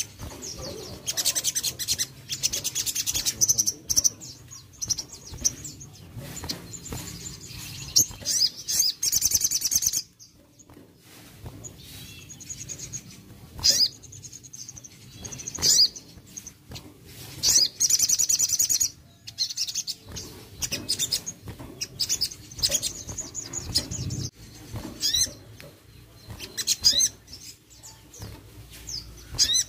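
Sogon sunbird singing: rapid high-pitched trilled phrases, some lasting two to three seconds, broken up by sharp single chirps.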